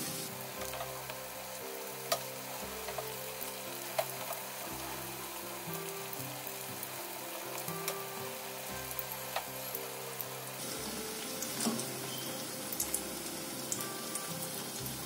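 Chicken potli, stuffed yeast-dough dumplings, deep-frying in hot oil in a non-stick pan: a steady sizzle, broken by a few sharp clicks as a slotted spatula turns them.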